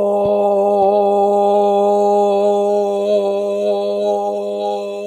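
A single voice toning one long, steady held note, a sustained vowel with a slight waver in pitch, easing off a little toward the end.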